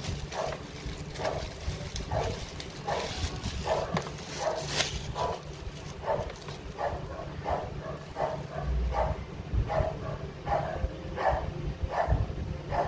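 A dog barking over and over, about two barks a second, with plastic wrapping crinkling now and then.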